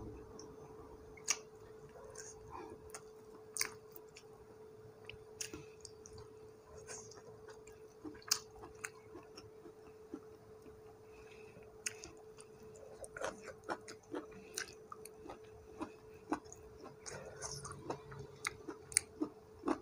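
A person chewing and eating by hand, with soft mouth sounds and scattered small clicks and crunches at irregular intervals. A faint steady hum runs underneath.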